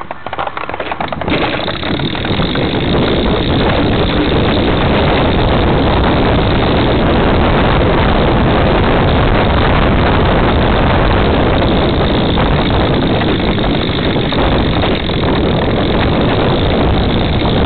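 Road bike rolling along, its frame vibration and tyre noise picked up as a loud, steady rush by a camera clamped to the bike's seat tube, starting abruptly about a second in.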